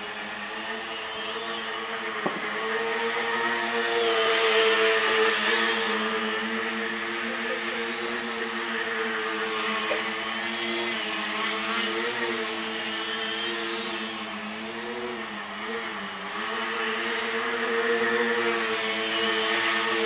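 RC tricopter's three electric motors and propellers buzzing in flight, the pitch wavering as the throttle is worked, with a dip about fifteen seconds in. It gets louder around four to six seconds in and again near the end as it flies close.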